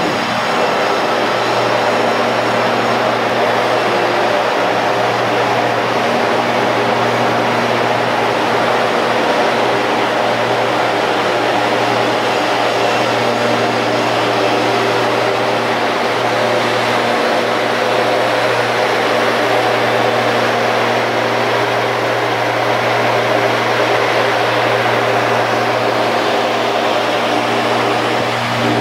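Large vane axial flow fan running at steady speed: a loud, constant rush of air over a low hum with several steady tones above it.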